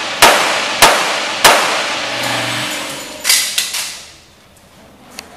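Pistol shots fired in quick succession, three about half a second apart, then another about three seconds in, each ringing on in the hard echo of an indoor concrete range. After about four seconds it goes quieter, with a few faint clicks near the end.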